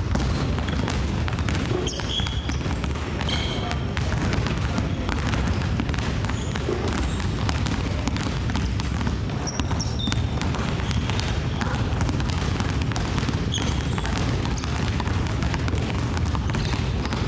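Several basketballs being dribbled at once on a wooden gym floor, a dense, continuous patter of overlapping bounces, with a few brief high squeaks.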